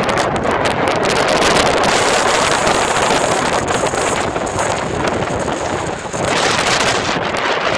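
Storm-force wind buffeting the microphone: a loud, continuous rush with gusting rises and falls and a brief lull about six seconds in.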